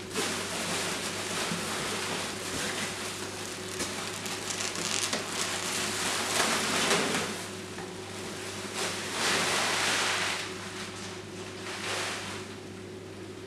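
Clear plastic packing wrap rustling and crinkling as it is handled and pulled out of a polystyrene box, loudest about six to seven seconds in and again around nine to ten seconds.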